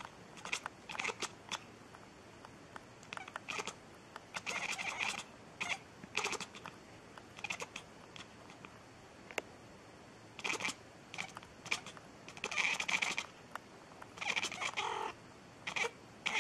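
A cat meowing over and over in short, separate calls, with several longer, louder meows in the second half, one dropping in pitch.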